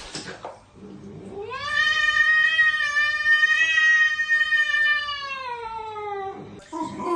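A pet's single long, drawn-out yowl lasting about five seconds, rising in pitch as it starts and sliding down near the end.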